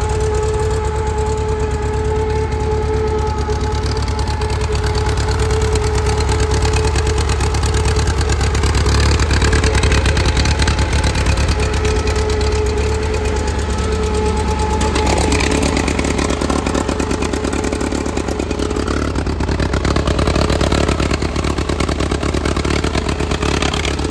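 Ingersoll 4016 garden tractor's engine running steadily, a fast even beat with a steady whine over it.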